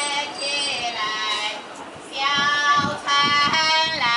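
A woman singing a Chinese boat song in a high voice, holding long notes with slight bends; the singing dips briefly around the middle and comes back louder.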